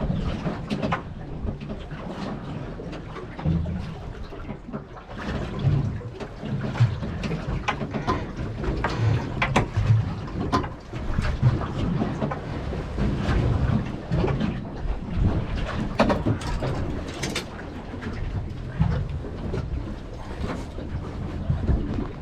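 Rumbling wind and water noise on a small boat at sea, with short clicks and knocks scattered throughout.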